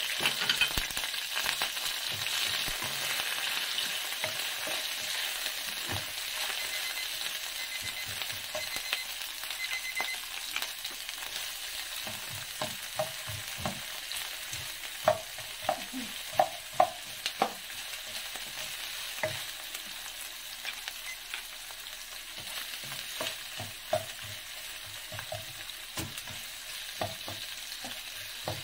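Sliced onions sizzling in hot oil in a non-stick pan, loudest just after they go in and easing off slowly. From about halfway on a spatula stirs them, with scraping and short taps against the pan, a few sharper knocks among them.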